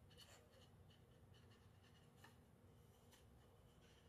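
Near silence: room tone with a few faint light ticks.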